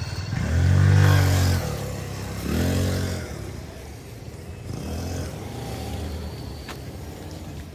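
Vehicle engines moving through a parking lot. One engine revs up and down in pitch about a second in, loudest then, again near three seconds, and more faintly near five seconds, over a steady low engine hum.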